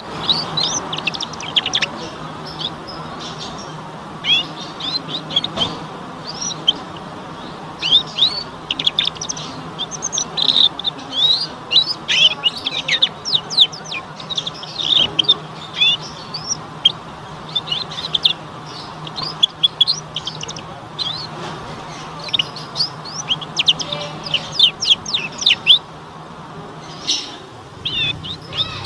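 Young domestic canary twittering in quick runs of short, high chirps with brief pauses between runs. This is a juvenile canary's early practice song (ngeriwik), before its voice matures into full song.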